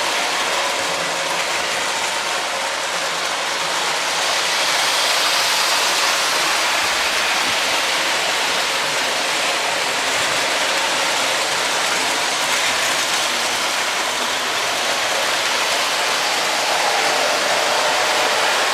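Several Lionel toy trains running at once on metal track: a steady mechanical whir and clatter of wheels and motors.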